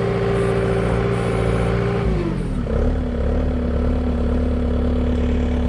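Diesel engine running at a steady raised speed, then throttled back about two seconds in, its pitch sliding down to a lower steady idle.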